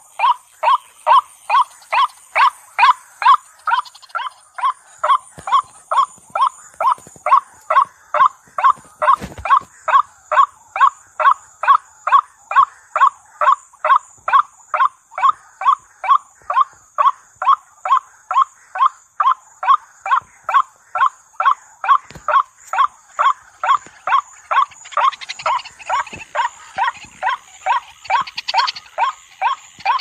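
White-breasted waterhen calling its repetitive 'ruak' call: a long, unbroken series of short, evenly spaced notes, about two a second.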